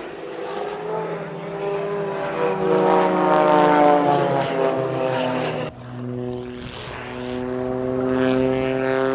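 A propeller aircraft's engine drones as the plane flies past, its pitch falling past the middle. The sound breaks off abruptly a little after halfway, then the engine drone comes back and grows louder.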